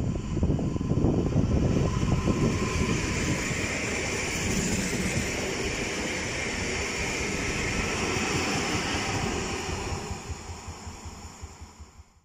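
Koleje Dolnośląskie 31WE Newag Impuls electric multiple unit running past along the platform: wheel and rail noise with a steady whine over it, dying away near the end.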